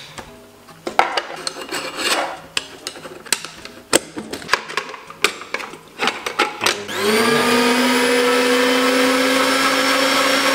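Metal and plastic parts of an Esperanza electric meat grinder clicking and knocking as they are fitted into place. About seven seconds in, the motor switches on, spins up quickly and settles into a loud, steady hum.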